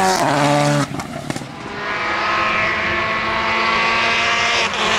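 Turbocharged four-cylinder rally car engines at full throttle. The first car passes close and its note drops as it goes by, then cuts off with a few sharp cracks about a second in. A second rally car is then heard coming on, its engine growing louder and then holding a steady note.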